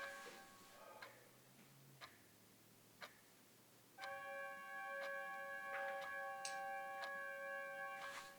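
A clock ticking about once a second. Over it a held chord of several steady tones fades out just after the start, then comes back suddenly about four seconds in and holds for about four seconds.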